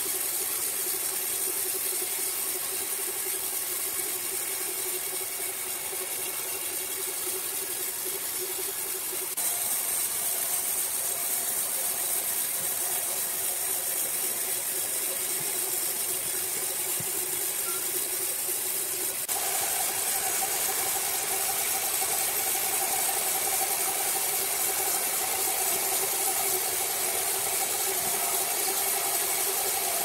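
Horizontal band sawmill running, its band blade cutting lengthwise through a large log: a steady motor hum under a high hiss of sawing. The hum and hiss shift abruptly twice, about a third and about two-thirds of the way through.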